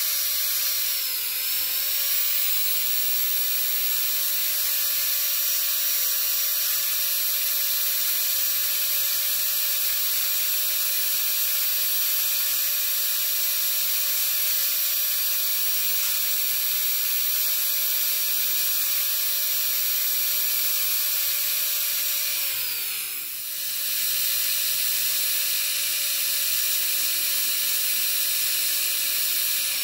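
High-speed dental handpiece whining steadily as its bur rounds off the internal walls and angles of a class I cavity in a plastic typodont lower first molar. The pitch sags and recovers about a second in, and falls and comes back up around 23 seconds, with the loudness dipping there.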